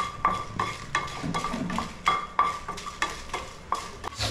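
Wooden spatula stirring dried red chillies as they dry-roast in a non-stick frying pan: about three knocks and scrapes a second against the pan, each with a short metallic ring.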